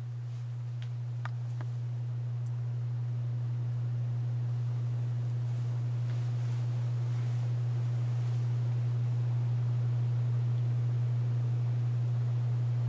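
1961 Akai M-5 tape recorder's capacitor-run induction motor running on a bench test: a steady low hum that grows slightly louder, with a few faint clicks in the first couple of seconds. It runs nice and smooth with very little vibration on its new run capacitor and rubber motor mounts.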